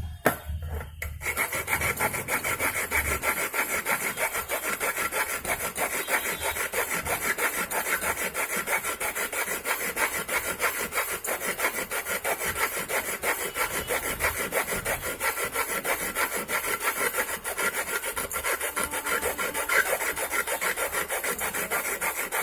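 Hand file rasping in quick, even back-and-forth strokes on the metal collar of a new microwave magnetron, starting about a second in. The collar is being filed down so that the replacement magnetron will fit the oven's mounting slot.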